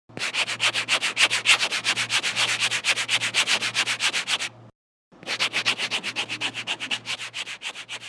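Rapid rhythmic scratching strokes, about eight a second, over a low steady hum; the scratching breaks off for a moment about halfway through, then starts again and fades near the end.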